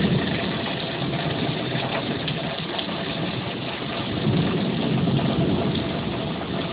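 Heavy rain pouring down in a steady rush, with a low rumble of thunder swelling about four seconds in.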